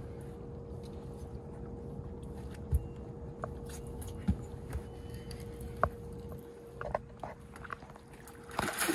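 Steady electric whine of a 24-volt Minn Kota Terrova trolling motor holding the boat, over a low rumble, with a few short knocks of gear against the boat. Near the end comes a rush of splashing as a hooked blue catfish is worked toward the landing net.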